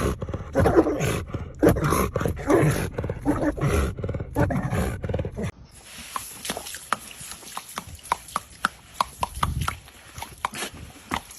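A dog vocalizing in rough bursts for about five seconds, followed by a quieter run of short, sharp clicks or taps.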